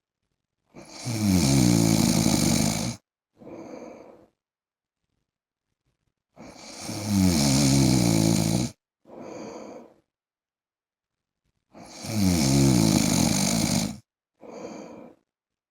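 A man snoring steadily in deep sleep: three loud snores of about two seconds each, roughly every five and a half seconds, each followed by a shorter, quieter breath sound.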